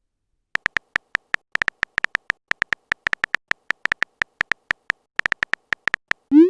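Phone keyboard typing sound effect: a run of quick, slightly irregular clicks, several a second, starting about half a second in.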